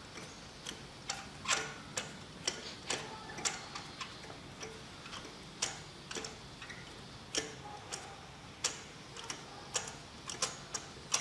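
Irregular light clicks and taps, one or two a second and sometimes in quick clusters, from hand tools and old spark plugs being handled during a spark plug change.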